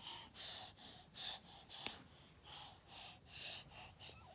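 A baby panting and gasping in a quick run of short, breathy huffs, about three a second.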